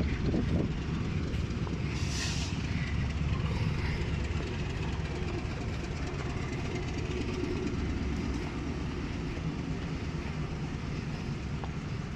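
A departing train's steady low rumble as the locomotive and wagons move off, with a short hiss about two seconds in.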